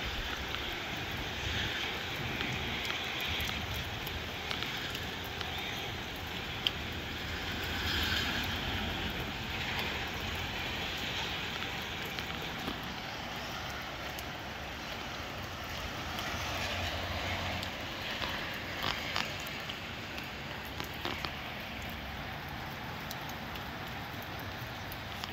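Gusty wind and rain: a steady rushing that swells and eases in gusts, with a few sharp ticks.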